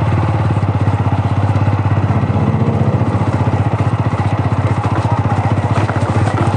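Single-cylinder engine of a TVS Apache RTR 200 4V motorcycle running at low, steady revs with an even, fast beat.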